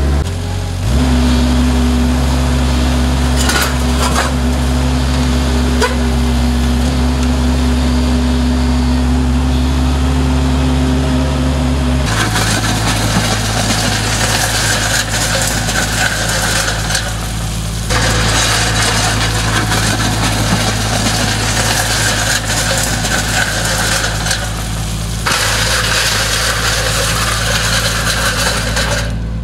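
Avant 635 articulated mini loader's engine running steadily under work. The engine note changes abruptly a little under halfway through and shifts again later on.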